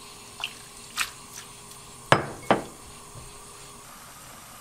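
Glass mixing bowl clinking and knocking against a pan as soaked dried sweet potato stems are tipped in: a few light clinks, then two louder knocks with a short ring about two seconds in.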